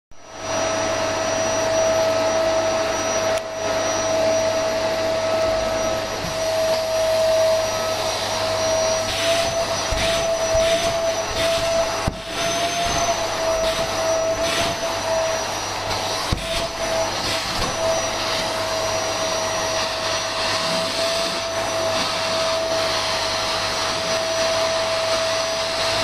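Vacuum cleaner running steadily: a constant high whine over a rushing suction noise, its pitch wobbling slightly now and then, with a few brief knocks.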